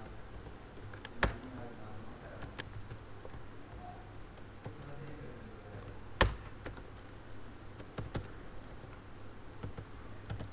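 Keystrokes on a computer keyboard, irregular and sparse, with two louder key presses about a second in and about six seconds in, over a faint steady low hum.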